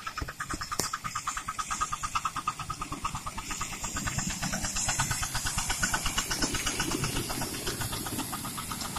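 Miniature live-steam locomotive passing close by, its exhaust chuffing in fast, even beats with a hiss of steam, growing louder towards the middle and easing off a little near the end. A single sharp click comes just under a second in.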